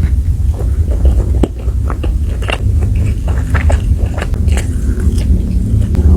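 Close-up mukbang eating sounds: a person biting and chewing crunchy food, with many sharp, irregular crunches over a steady low rumble.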